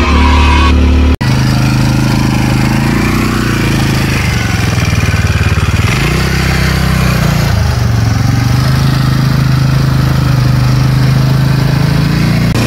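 An ATV's engine running as it is ridden, its pitch rising and falling with the throttle. There is a sudden break about a second in, after which the engine note comes back.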